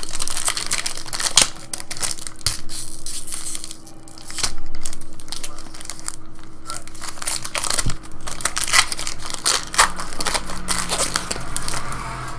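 Foil wrapper of a 2014 Bowman Draft baseball card pack crinkling and tearing as it is ripped open and the cards are pulled out, in dense irregular crackles.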